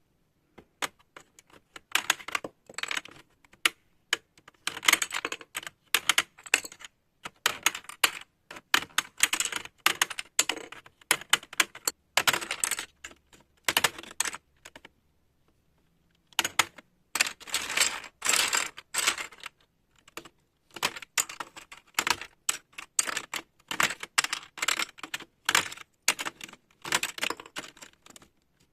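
Plastic keycaps of a membrane keyboard clicking and rattling in quick clusters as they are pried off, with a pause of about a second and a half around the middle.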